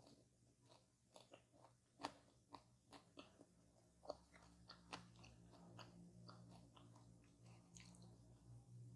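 Faint, close-up eating sounds: a person biting and chewing a crisp pie, an irregular run of small crunches and crackles.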